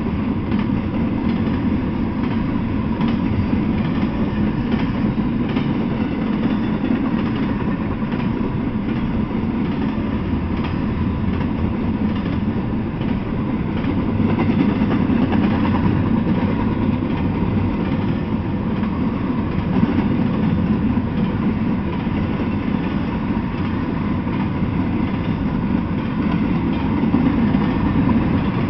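Double-stack intermodal freight train's well cars rolling past: a steady rumble of steel wheels on the rails, with faint scattered clicks.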